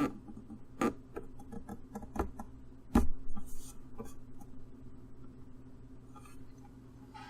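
Irregular light clicks and knocks of small objects being handled and set down on a work surface, busiest in the first few seconds and thinning out after that, over a faint steady low hum.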